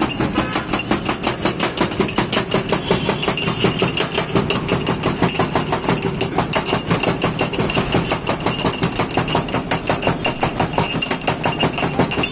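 Metal pestle pounding in a small steel mortar, crushing cardamom for chai: rapid, steady metallic strokes that ring.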